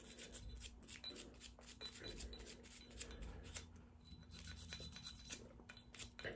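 Faint, repeated scratchy strokes of a nylon cleaning brush scrubbing the breech face and striker tip of a Glock 19 slide.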